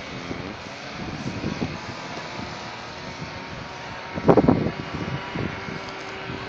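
Steady outdoor noise of wind and distant city traffic heard from high above the streets, with one brief louder sound about four seconds in.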